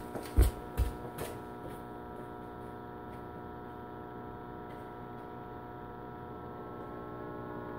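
Steady electrical hum of a PowerJack 15000 W split-phase inverter running under a load of about 13 amps, with a few soft knocks in the first second or so.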